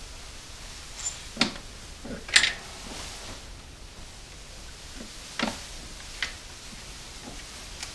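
Scattered metallic clicks and clinks of hand tools and engine parts being handled at the front of a V8 engine during timing chain work, a handful of short sharp knocks spread over several seconds, the loudest about two and a half seconds in.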